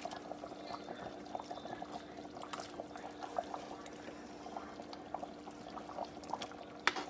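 A pot of fish stew simmering with small bubbling pops while raw whiting pieces are tipped from a plastic container and slide wetly into the broth, over a steady low hum. There is one sharp tap near the end.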